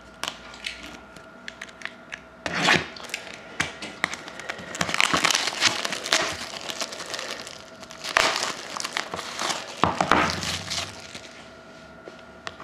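Packaging on a box of trading cards being crinkled and torn open, in several bursts of crackling with short pauses between.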